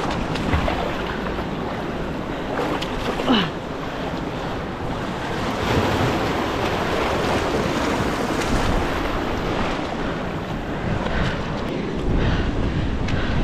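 Surf washing and surging over rock ledges, with wind buffeting the microphone. A short sound sliding down in pitch about three seconds in.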